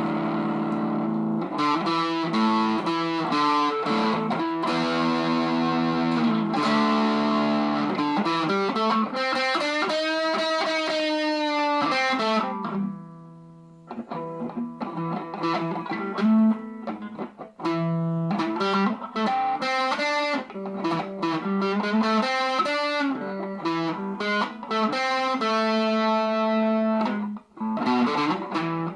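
Squier Telecaster electric guitar played through a Fender Champion 50XL amp with an overdriven tone, mixing held chords and single notes. About ten seconds in, a note is bent up and let back down, and the playing thins out briefly just after.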